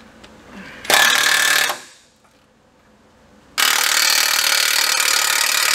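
Cordless impact wrench running on a bolt in two bursts: a short one about a second in, then a longer one of about three seconds.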